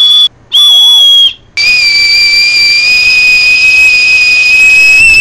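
A small whistle blown hard: two short shrill blasts, then from about a second and a half in one long held blast at a slightly lower pitch, rising a little as it goes on.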